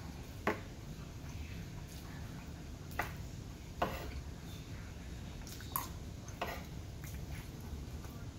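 Metal spoon scooping fried rice off a wooden board: about five short, sharp clicks and scrapes spread out over several seconds.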